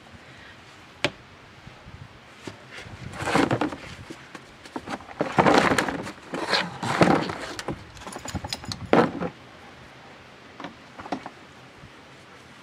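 Hands and a tool rustling and scraping through damp compost and potato haulm in a growing tub, in several bursts with a few sharp clicks between them.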